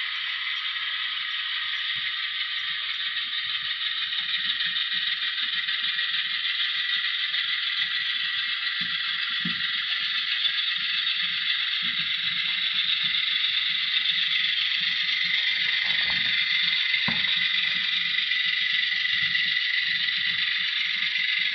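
Model railroad tank cars rolling along the track: a steady high rolling hiss of metal wheels on rail, with irregular light clicks and clacks as the wheels pass rail joints and turnouts, and two sharper knocks a little past the middle.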